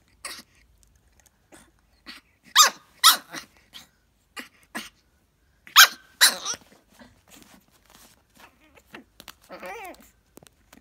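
Pug puppy giving high, sharp yipping barks at a plastic hair spray bottle, in two pairs about three seconds apart, then a short wavering whine near the end. Small scuffs and clicks of paws and the bottle on carpet come in between.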